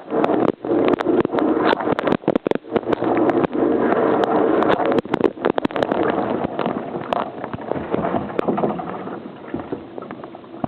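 Water spraying and splashing inside a running dishwasher, heard from within the tub, over the steady hum of the wash pump, with many sharp clicks and patters of jets and drops striking. It grows quieter over the last few seconds.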